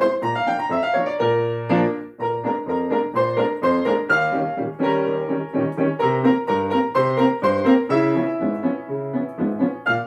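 Piano duet playing a fast perpetual-motion piece: a continuous stream of quick notes over a bass line, with a short drop in level about two seconds in.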